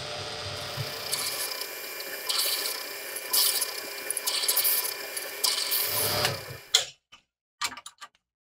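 Drill press running as a twist drill bit cuts a pin hole through a steel knife tang, with scratchy bursts of cutting from about two seconds in. It stops about seven seconds in, followed by a few light taps.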